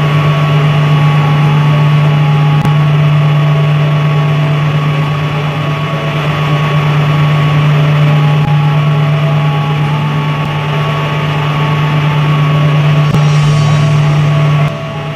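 Loud, steady mechanical drone of an engine or motor running at a constant pitch, with a fainter high whine above it; it drops off abruptly near the end.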